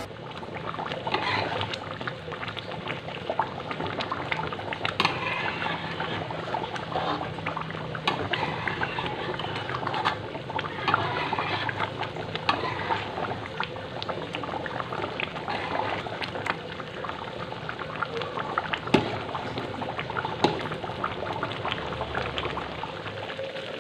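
Thick coconut-milk spice sauce bubbling and spluttering in a metal wok as it simmers down to thicken, with a few scrapes and taps of a spoon stirring through it.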